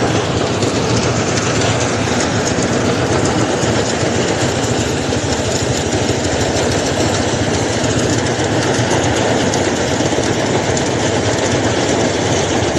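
Steady, loud mechanical rattling with an engine running underneath, unbroken throughout.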